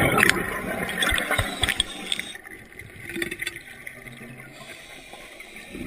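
Water gurgling and sloshing, with a few short knocks in the first two seconds before it quietens.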